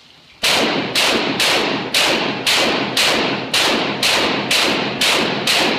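Rapid string of shotgun shots, about eleven fired at an even pace of roughly two a second, each trailing off in a short echo. The shots begin about half a second in.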